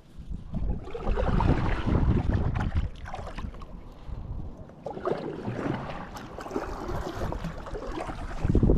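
Kayak paddle strokes, the blade dipping and splashing through the water in swells a few seconds apart, with wind on the microphone.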